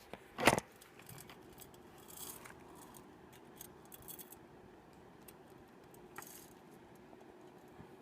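Small objects handled by hand: a short loud rattle about half a second in, then faint clicks and scrapes.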